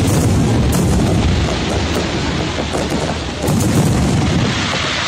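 Aerial fireworks shells bursting in a dense barrage, their booms overlapping into a continuous rumble, with fresh louder bursts at the start and about three and a half seconds in.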